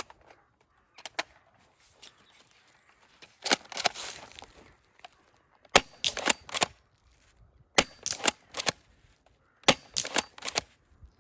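M56A spring-powered airsoft pump-action shotgun being racked and fired: sharp clacks in clusters about two seconds apart through the second half, after a few lighter clicks and a rattling cluster about three and a half seconds in.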